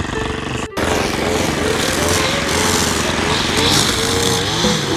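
Small gas engines running: a string trimmer cutting tall grass, its engine pitch rising and falling as the throttle is worked, with a push mower running behind it. The sound breaks off briefly under a second in and then resumes.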